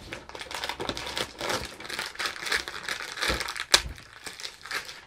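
Cardboard and plastic packaging crinkling and rustling as a door of a Baby Annabell advent calendar is pried open and its contents pulled out, with one sharp crack a little before four seconds in.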